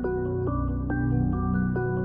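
Background music in a calm new-age style: a repeating run of notes, changing about three times a second, over a held low bass.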